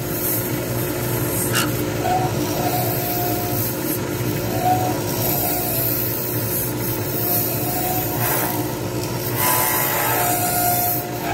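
Lathe spinning a cast-resin pen blank while a hand-held turning tool cuts it: a steady motor hum under the continuous scraping hiss of the tool peeling off ribbons of resin, with brief higher tones now and then.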